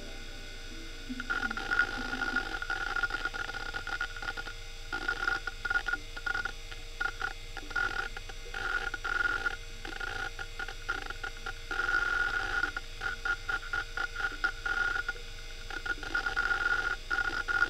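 Western Digital Caviar 21200 IDE hard drive reading data: its head actuator seeks in rapid chattering bursts with short pauses, starting about a second in, over a steady whine. The drive has many bad sectors scattered across its platters.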